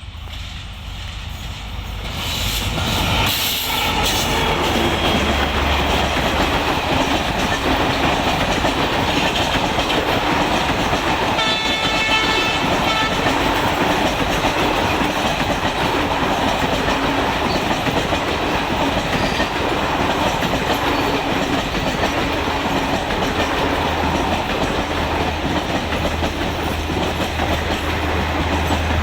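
Indian Railways Garib Rath express train running past close by: the rumble and rattle of the train on the rails builds over the first few seconds, then holds loud and steady. A single horn blast of about a second and a half comes near the middle.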